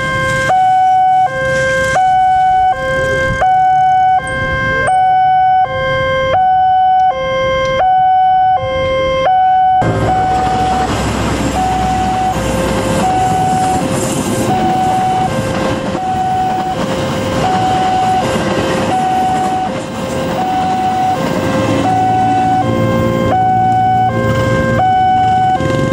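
Railway level-crossing warning alarm sounding a repeating two-tone signal, alternating between a lower and a higher pitch about every half second. About ten seconds in, the rumble and rattle of a passing train join it, and the alarm keeps sounding over the train.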